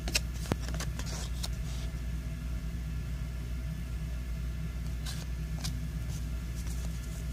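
Paper trading cards being handled and shuffled: a few soft flicks and rustles of card stock, mostly in the first second and a half and again about five seconds in, over a steady low hum.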